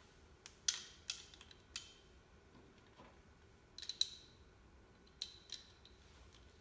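Metal and plastic parts of a PEX crimping tool and 1/2 inch fittings being handled: a scatter of short sharp clicks and clacks, ending in a loud sharp snap.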